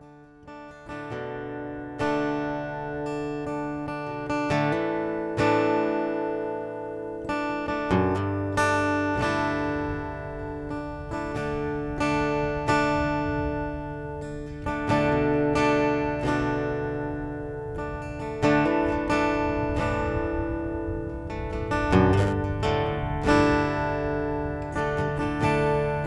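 Acoustic guitar music, plucked and strummed notes at a slow, even pace.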